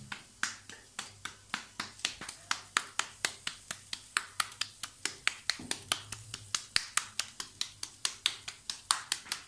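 A raw ground-meat patty slapped rapidly back and forth between wet palms, about four or five pats a second, to flatten and shape it for grilling.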